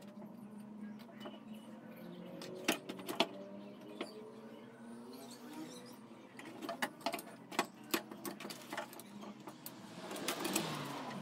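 A wooden slatted swing being handled and fitted with its rope: scattered sharp wooden clicks and knocks, a quick cluster of them in the middle, then a rustle of rope through plastic tubing near the end. A low steady hum runs underneath.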